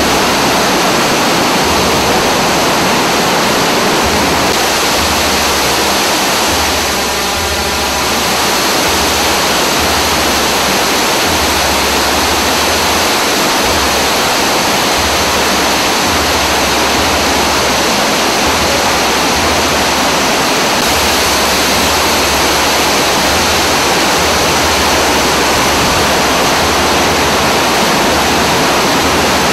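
White water cascading over rocks and down a waterfall in a fast mountain stream: a loud, steady rush. About seven seconds in it briefly dips and takes on a hollow, swirling tone.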